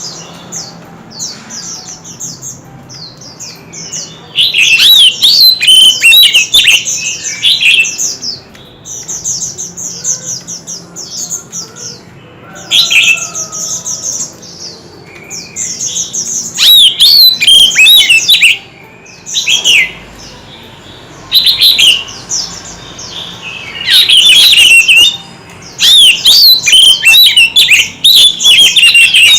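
Oriental magpie-robin singing a long, varied song: loud phrases of quick gliding whistles and rapid trills, broken by quieter, fast, chattering notes between them.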